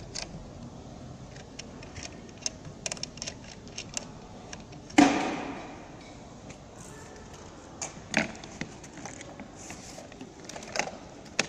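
Scattered clicks, taps and rattles of parts being handled as a skylight opener cylinder and its bracket are fitted to an aluminium frame, with one louder clunk about five seconds in that rings briefly and another knock near eight seconds.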